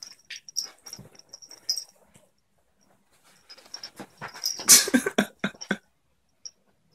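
A dog and a cat play-fighting on a bed: scuffling on the bedding with short high squeaks, and a louder flurry of scuffling with animal vocal noises about four to six seconds in.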